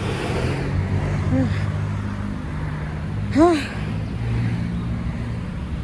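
Steady low rumble of road traffic, with one short rising-and-falling vocal sound about three and a half seconds in.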